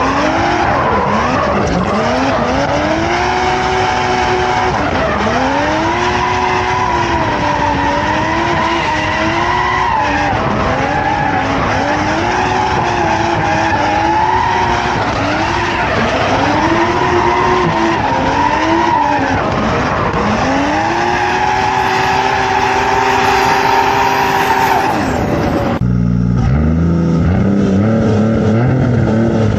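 Toyota Chaser JZX100's turbocharged JZ straight-six engine during a drift run: revs rise and fall every few seconds over tyres skidding, then hold steady for several seconds. About four seconds before the end the sound cuts abruptly to a lower, steadier engine note.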